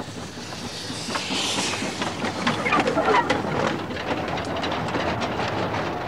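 Small narrow-gauge steam locomotive on the move, with a hiss of escaping steam about a second in, and its train of tipper wagons clanking and rattling past over the rails.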